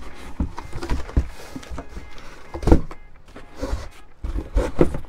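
Cardboard kit box being opened by hand: the lid scraping and rubbing as it slides off the box, with several dull thumps of cardboard. The loudest thump comes a little under three seconds in, with two more near the end.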